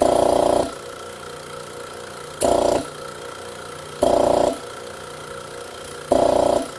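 Single-cylinder air compressor pump running with its air cleaner off, under a steady hum. Its intake sound swells loud four times, each for about half a second, as a hand is put over and taken off the open intake port. Suction at the intake shows the newly replaced valve is working.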